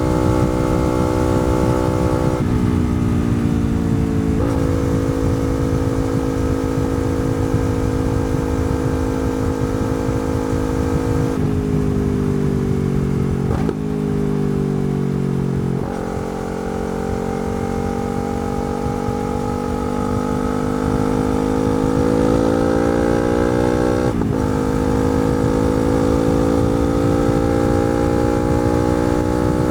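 Yamaha R3 parallel-twin motorcycle with a slip-on exhaust, ridden through the gears. It upshifts twice early on, then slows with the engine note falling and two downshifts in the middle. After that it pulls away again, the note climbing steadily, with an upshift about three-quarters of the way through and another right at the end.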